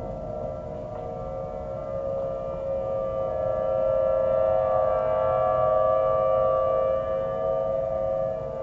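Several outdoor warning sirens, including Thunderbolt 1000AT sirens, sounding together the steady Alert tone of a monthly siren test. The tone swells louder through the middle and eases off near the end.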